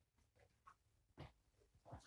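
Near silence: room tone with a few faint soft knocks, the plainest about a second in and just before the end.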